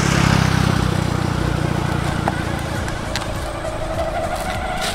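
Children's electric ride-on toy motorcycle pulling away, its built-in speaker playing a simulated motorcycle engine sound that swells as it sets off and then settles.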